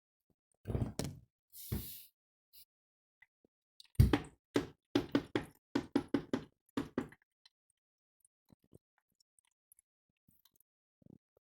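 Candy washing machine drum turning during the rinse, the wet laundry inside falling with a run of dull thuds, about three a second for a few seconds, after a couple of single knocks near the start.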